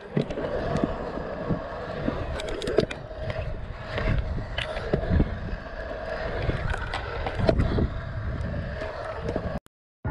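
Stunt scooter rolling over a concrete skatepark, its wheels running with a steady whir, with sharp clacks and knocks as it hits ramps and transitions. The sound cuts off suddenly near the end.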